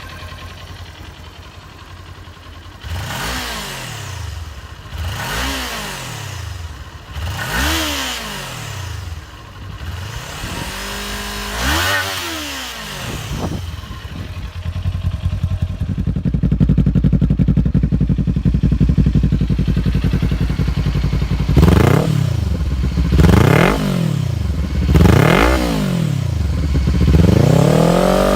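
Kawasaki Ninja 400 parallel-twin engine revved in repeated throttle blips, each rev rising and falling back toward idle. About halfway through it gets louder and holds a steadier note for several seconds, then three sharp blips come near the end.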